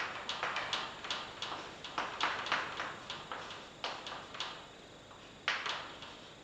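Chalk writing on a blackboard: irregular short scratching strokes and taps as an equation is written out, a few strokes a second, with a sharper tap about five and a half seconds in.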